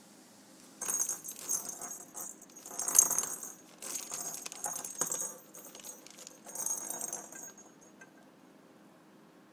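Perforated plastic cat toy ball with a bell inside, jingling and rattling in a series of bursts as a cat bats it and it rolls, starting about a second in and dying away after about seven seconds.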